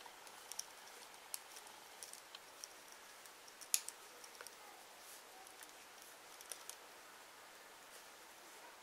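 Faint, irregular clicks of circular knitting needles tapping together as stitches are knitted, with one louder click nearly four seconds in.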